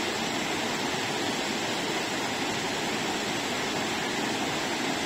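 Shallow river water rushing steadily over and between boulders.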